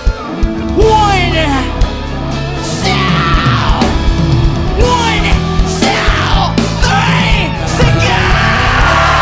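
Crowd shouting and whooping loudly over a live band playing, with a bass line and drum hits underneath.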